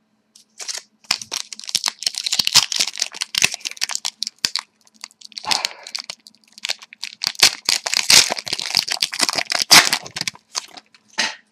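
Hockey card pack wrapper being torn open and crinkled in the hands, an irregular run of crackles with a short pause partway through.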